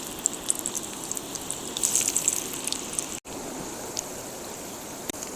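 Chicken and banana-flower vadai deep-frying in hot oil: a steady sizzle with sharp crackles, more crackling in the first half. The sound cuts out for an instant about three seconds in.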